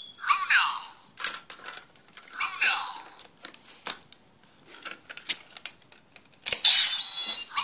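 Kamen Rider Double toy belt and its Luna memory stick: two short, tinny electronic voice calls from the toy's small speaker, with plastic clicks as the memory is pressed and slotted into the driver buckle. A louder electronic sound effect from the belt starts about six and a half seconds in.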